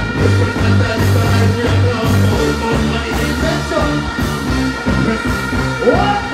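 Dancehall music playing loud through a festival sound system, with a heavy, rhythmic bass line and a voice singing over it near the end.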